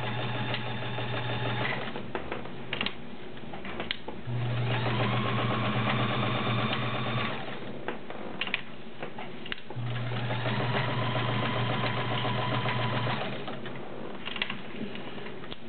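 Kenmore 1601 all-metal sewing machine with its 1.2 amp motor, running and stitching through six layers of denim with a size 16 needle. It sews in three runs of a few seconds each, with a few sharp clicks in the pauses between them.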